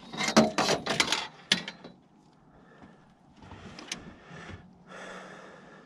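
A quick run of sharp clattering knocks for about a second and a half, then quieter rustling and scraping, as a landed trout and fishing gear are handled on the floor of a metal fishing boat.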